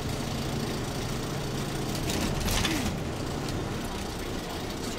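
Cabin noise of a shuttle bus in motion: a steady engine and road hum, with a short burst of noise about halfway through.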